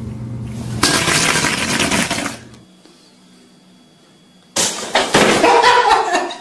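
A sudden loud bang, then about two seconds of clattering as a small stool with a cat on it tips over. Before that there is a steady low hum with a loud rushing noise over it, which stops about two and a half seconds in.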